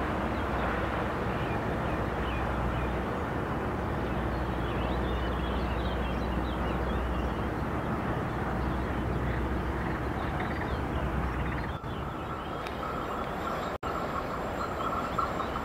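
Container freight train rolling past on the far riverbank, a steady running noise with a low hum under it, while small birds chirp.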